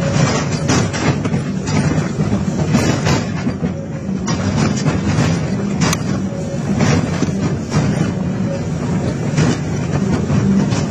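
Excavator's diesel engine running under load while its hydraulic scrap shear tears and cuts sheet steel, with repeated sharp metal clanks, bangs and scraping.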